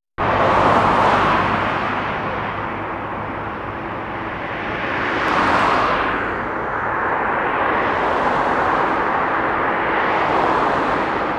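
Boeing 747-400's four GE CF6 turbofan engines running at low taxi power, a steady loud rushing jet noise that swells and eases every few seconds.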